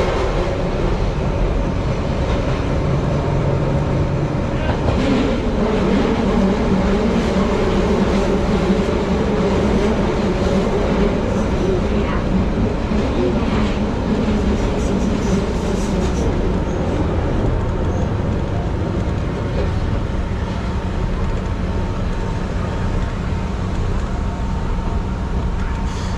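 Electric commuter train running, heard from inside the driver's cab: the steady rumble of wheels on rail and running gear, with pitched hums that shift as it goes. It gets a little quieter over the second half.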